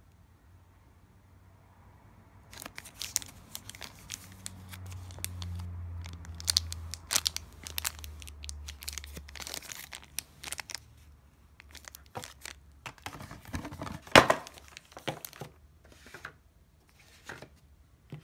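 Clear plastic bag around a battery crinkling and tearing as it is handled and pulled open. It is a run of sharp crackles starting about two and a half seconds in, loudest about fourteen seconds in.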